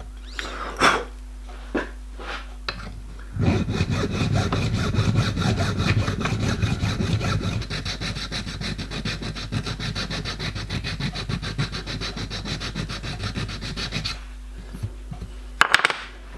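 Hand file and rubbing strokes on a small brass axle box clamped in a bench vise, filing clearance so the box can rock slightly. A few separate strokes at first, then steady rapid back-and-forth rubbing from about three seconds in until about two seconds before the end, followed by a few louder knocks.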